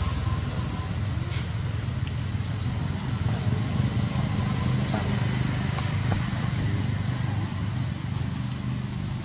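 Steady low rumble like a running engine, with faint, short, rising high chirps every second or two.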